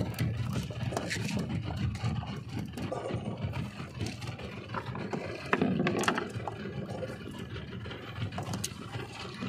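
A small fishing boat's engine running low and steady, under scrapes, rattles and clicks of fishing tackle being handled, with one louder knock about six seconds in.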